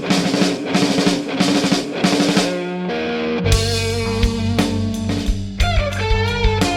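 Rock band of electric guitar, bass and drum kit playing. The first half is mostly drums with repeated cymbal and drum hits; about three and a half seconds in, the full band comes in with sustained bass notes and guitar lines that bend in pitch.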